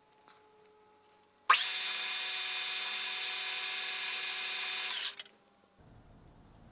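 Metal lathe running under power: a steady whine with many tones. It starts abruptly about a second and a half in and stops abruptly about three and a half seconds later.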